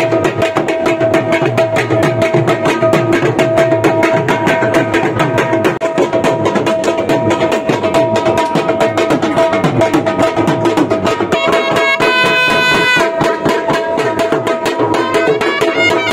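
Music with fast, steady hand-drumming under held melody notes; about three-quarters of the way through, one brighter, high note is held for about a second.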